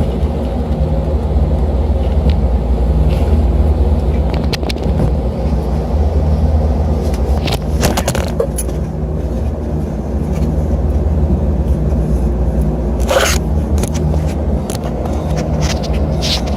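Rooftop HVAC unit running with a steady low hum, and a few scrapes and knocks, the loudest about thirteen seconds in.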